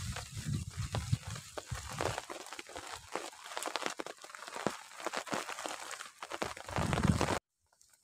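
Wood fire crackling and snapping under a rack of split sticks, mixed with the clatter of sticks and a fish being handled on the rack. A low rumbling noise comes at the start and again just before the sound cuts off suddenly about seven seconds in.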